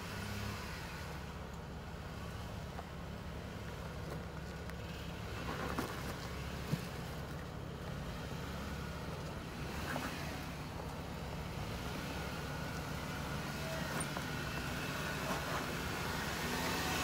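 Jeep Wrangler JK Rubicon's V6 engine running steadily at low revs as it crawls up a rock climb, growing louder as it comes closer. A few faint knocks sound along the way.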